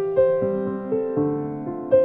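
Background piano music: single notes struck one after another, about two a second, each fading, over lower held notes.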